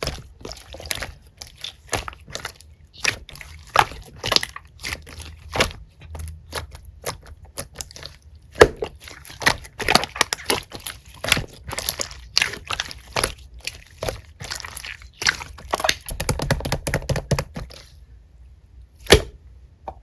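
Slime being squeezed, folded and poked by hand, giving irregular sharp popping and clicking sounds several times a second. It stops for about a second near the end, then one last pop.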